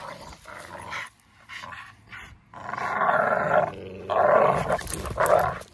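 American bully dogs growling while they bite and pull on a jute bite pillow. The growling comes in three long, rough growls over the second half.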